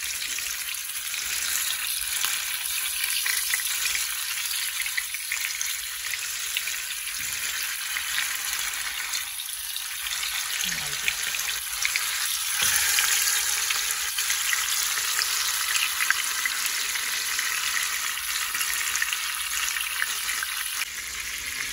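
Marinated chicken drumsticks frying in hot oil in a non-stick pan: a steady, dense sizzle full of fine crackles, getting a little louder about halfway through as more pieces go into the oil.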